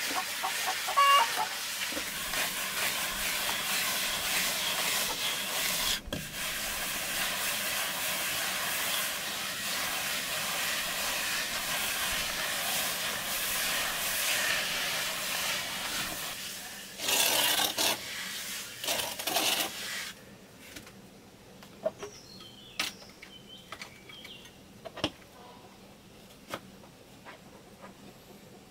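Wooden hand float rubbing over fresh cement render, a steady rasping scrape. About 20 seconds in the scraping stops, leaving only faint scattered taps.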